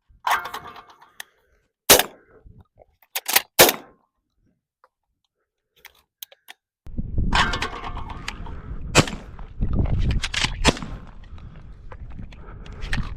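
A Benelli Super Black Eagle 3 semi-auto shotgun firing and being worked, with a few sharp bangs and clacks in the first four seconds. The cheap shells are failing to cycle the action nearly every shot. From about halfway through there is a long stretch of loud rumbling noise with knocks in it.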